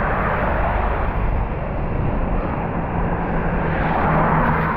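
Wind and road noise from a motorcycle ride on a wet road: a steady rush with a low engine hum beneath it, growing a little louder near the end.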